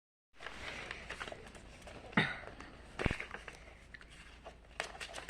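A sheet of paper rustling and crinkling as it is handled and creased for folding a paper airplane, with scattered small clicks and two sharper knocks, the second a dull thump about three seconds in.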